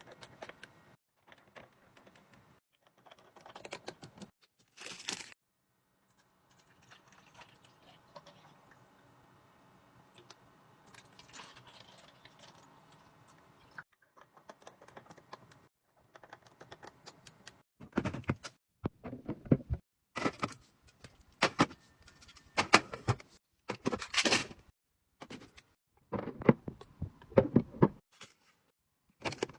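Drinks and snacks being handled and set in place while a mini fridge is restocked: a string of light clicks, clinks and knocks with some rustling. The knocks get louder and come closer together about two-thirds of the way through.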